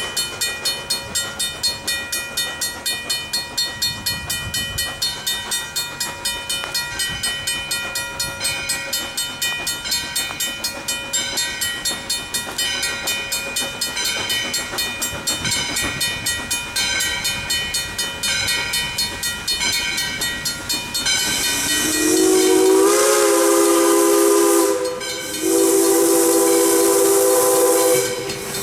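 ALCo-built 2-8-2 Mikado steam locomotive No. 40 drawing closer, its exhaust beating in a fast, even rhythm. About three-quarters of the way in, its chime steam whistle blows two long blasts with a short break between them.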